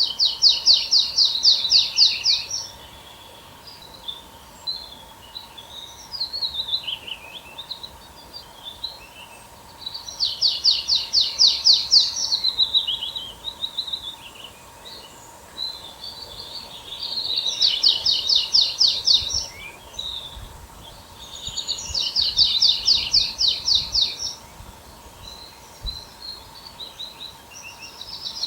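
A songbird singing a short song, a fast trill of repeated high notes about two seconds long, repeated at intervals of several seconds, with a few softer scattered notes in between. A faint steady hum runs underneath.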